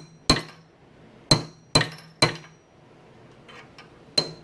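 Hammer striking a steel punch to drive a tapered roller bearing cup out of a truck axle hub: five sharp metallic blows with a ringing tone, four in quick succession, then a pause and a fifth near the end.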